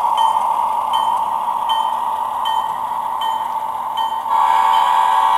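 HO-scale Alco RS3 model diesel locomotive running on a DCC layout: a steady drone with a short high ding repeating about every three-quarters of a second. About four seconds in, a louder, fuller pitched tone joins.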